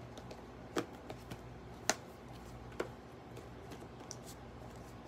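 Three sharp clicks about a second apart, with a few fainter taps, from hands handling something below the picture, over a steady low hum.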